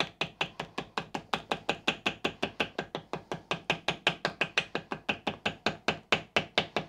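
Rapid, even light taps of a small hammer on jointing paper laid over a bronze steam-valve casting, about seven taps a second, cutting the centre hole of a paper gasket against the casting's sharp machined edge.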